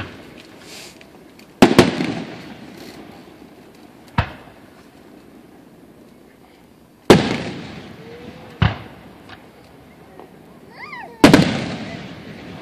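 Aerial firework shells bursting overhead: about six sharp booms a couple of seconds apart, two of them nearly together, each echoing away.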